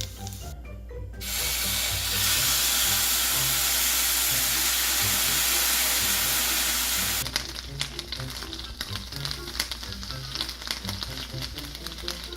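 Food frying in a hot pot. A loud, steady sizzle comes up about a second in, then a bit past halfway drops to a lighter crackle and spatter of popping oil.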